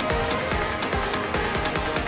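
Electronic dance background music with a steady beat.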